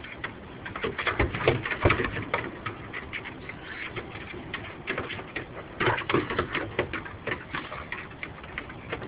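Irregular patter of small clicks and scuffles from a dog and a fawn playing at close range.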